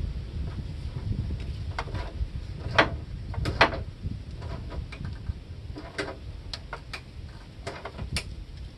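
Ratchet wrench tightening the snow cab's rear support bolts on a garden tractor: scattered sharp metallic clicks, a few at a time, over a low rumble.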